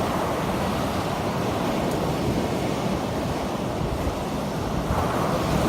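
Storm surf on the sea: a steady wash of breaking waves, with a fresh wave swelling about five seconds in, and wind on the microphone.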